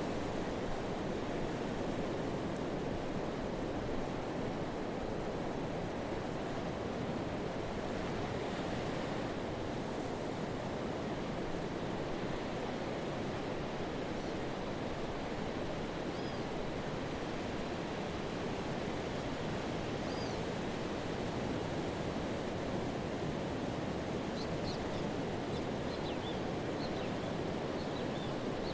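Pacific surf washing onto a sandy beach: a steady, even rush of waves and foam with no single crash standing out. A few faint high chirps come in near the end.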